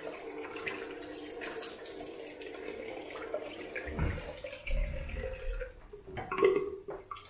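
Bathroom tap running into a basin while water is splashed onto the face to rinse off shaving lather, with heavier splashing from about four seconds in. The water stops near the end.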